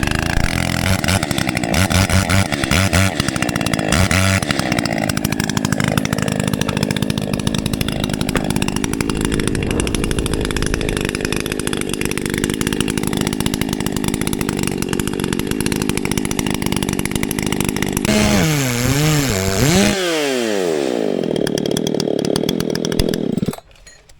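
Chainsaw running at steady high revs while cutting into a pine trunk, its chain a little dull by the owner's judgement. Near the end the revs swing up and down a few times, then the saw cuts off.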